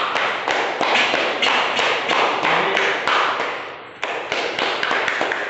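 A small group of people clapping their hands, the claps dense and overlapping. The clapping dies away about four seconds in and starts again at once.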